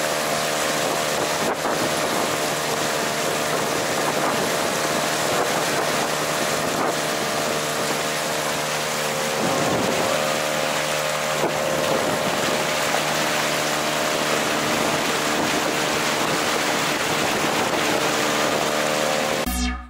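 Mercury 3.3 two-stroke outboard motor running steadily at constant speed while being run in, pushing the inflatable boat, with wind and water noise over it.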